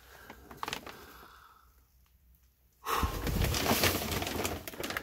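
Plastic vapor barrier sheeting crinkling and rustling loudly as someone crawls over it, starting abruptly about three seconds in after a quieter stretch with a few light clicks.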